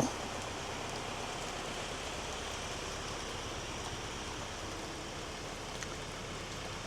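Light rain falling, a steady even hiss, with one faint tick about six seconds in.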